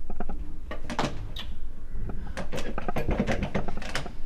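A door handle being worked and the door rattled: a string of sharp clicks and knocks at an uneven pace.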